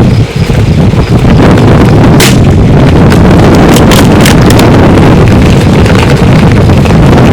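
Strong wind buffeting the microphone, a loud, constant low rumble that saturates the recording, with a few short sharp clicks about two seconds in and around four seconds in.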